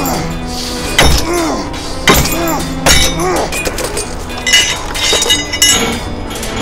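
Three heavy blows on a wooden cage with iron bars as it is forced open, each with a short metallic ring that rises and falls in pitch, then a run of light clinking metal. A music score with a steady drone runs underneath.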